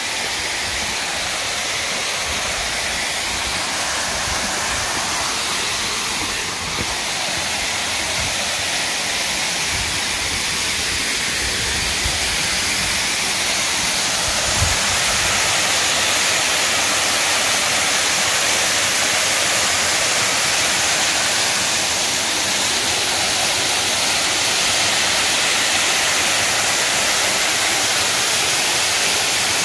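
Waterfall spilling over a stone masonry dam: a steady rush of falling water that grows a little louder about halfway through as it gets closer.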